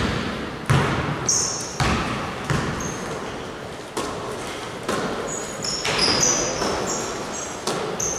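Basketball bouncing on a gym floor in irregular thuds, each with a short echo, mixed with brief high-pitched sneaker squeaks on the court.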